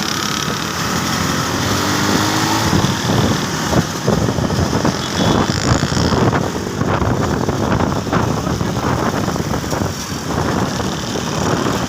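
Motor vehicle engine running, with dense irregular rattling and knocking that starts about three seconds in.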